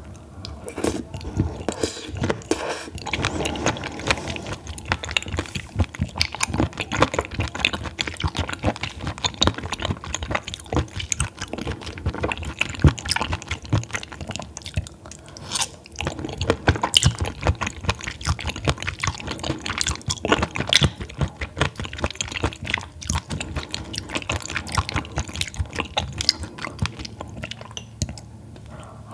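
Close-miked wet chewing of raw baby squid: a steady stream of small squishy clicks and mouth smacks.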